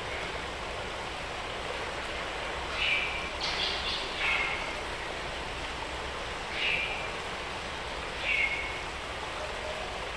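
Tropical forest ambience: a steady hiss of background forest sound with a bird calling a short, slightly falling note over and over, roughly every one to two seconds.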